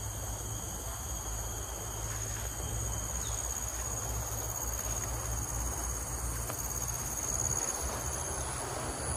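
Steady insect chorus: an even high-pitched shrill with a fainter, higher tone above it, over a low rumble.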